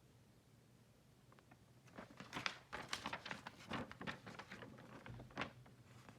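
Hands handling a card collector's guide book: a cluster of light rustles and sharp little clicks starts about two seconds in and dies away just after five seconds, over a faint steady hum.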